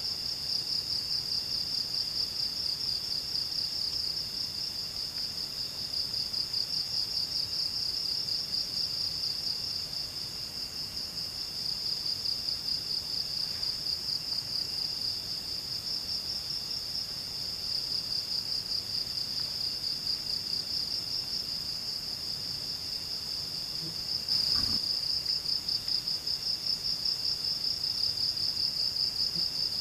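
Forest insects trilling steadily, a high fast-pulsing chorus that never stops, with a fainter second call coming and going beneath it. A single short knock sounds near the end.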